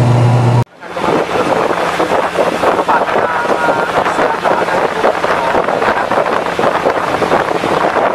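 A turboprop airliner's propeller drone in the cabin, a steady low hum, cuts off abruptly within the first second. It gives way to a steady rushing of water and wind as an outrigger boat moves over the sea, with spray splashing along its outrigger.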